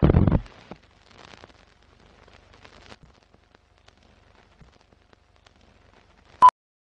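Sound effects of a film-leader countdown intro: a loud low boom at the start, faint crackling and ticking like old film running, and one short, sharp beep near the end.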